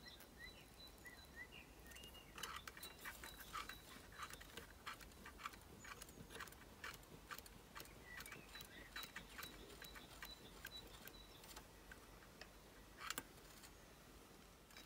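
Faint, irregular ticking and clicking as fine 0.315 mm (28-gauge) copper weaving wire is wrapped by hand, turn after turn, around a thicker copper wire to form a tight coil. There are a few clicks a second through most of the stretch, and one slightly louder click near the end.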